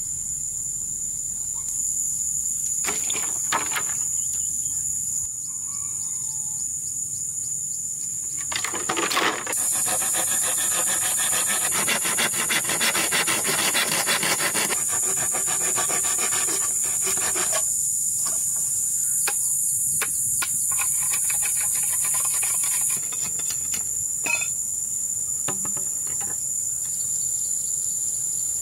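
Bamboo pole being sawn by hand with a blade: rapid back-and-forth rasping strokes in two long runs, about ten seconds in and again near twenty seconds, with a few single knocks before them. A steady high drone of insects runs underneath.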